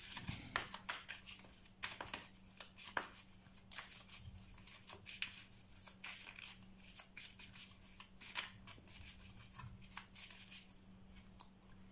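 Tarot cards being shuffled and handled: a long run of soft, irregular card snaps and slides, over a faint steady low hum.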